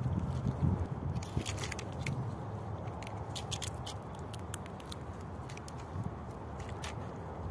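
A Eurasian red squirrel feeding on sunflower seeds at close range: many sharp, irregular clicks and crackles, densest in the first half, as it handles and cracks the seeds and grips the pine bark. A low rumble runs underneath, strongest about the first second.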